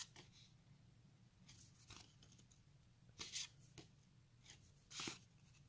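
Faint papery swishes of stiff journaling cards being slid off a hand-held stack one at a time, several short strokes over a low steady hum.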